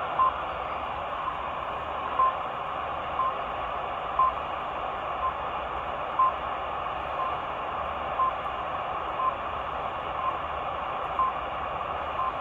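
RWM time signal station heard on a Sangean ATS-909X2 shortwave receiver in upper sideband: short beeps near 1 kHz, one each second, over steady shortwave static hiss. Some of the second pips come through stronger than others.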